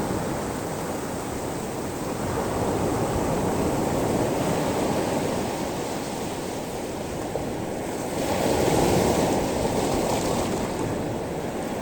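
Sea waves washing over a pebble shore: a steady rushing wash that swells louder about eight seconds in, then eases.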